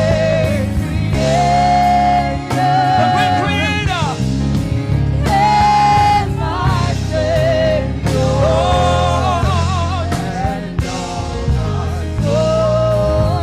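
Gospel song: singing with a wavering, vibrato-laden melody over steady sustained accompaniment.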